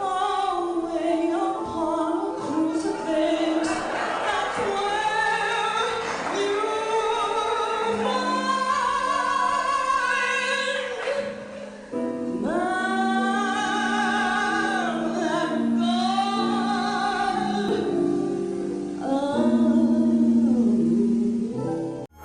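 A woman singing a song in long held notes with vibrato, over sustained musical backing. There is a brief break about halfway through, and the song cuts off abruptly at the end.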